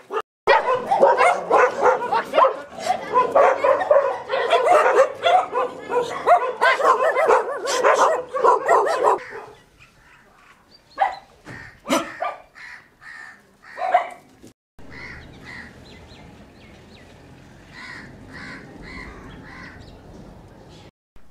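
A pack of dogs barking and yelping all at once, a dense chorus for about nine seconds, then a few single barks. After that the sound drops to a quieter background with faint calls.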